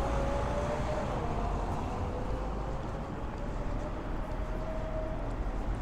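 Street traffic: a passing vehicle's engine hum, slowly falling in pitch, over a steady low rumble.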